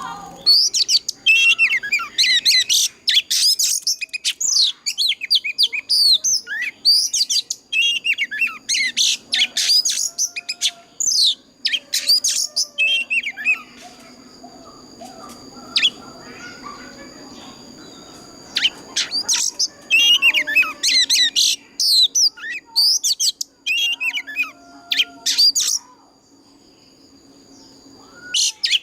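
Oriental magpie-robin singing loudly: phrases of rapid, varied whistles, slurs and harsh chattering notes, with short pauses between phrases.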